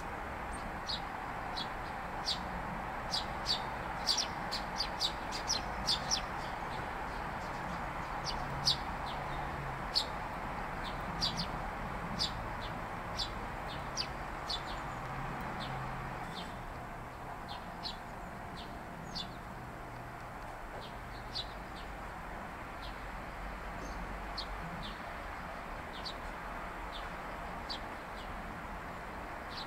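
Small songbirds chirping: short, high, sharp calls, coming in a quick, irregular run through the first half and more sparsely after that. They sound over a steady background hiss.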